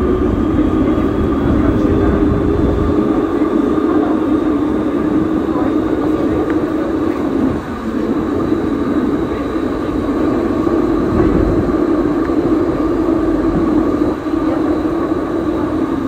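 VBZ Be 4/6 'Mirage' tram running along the track: a steady running noise of its motors and wheels on the rails, with a humming tone and a faint high whine.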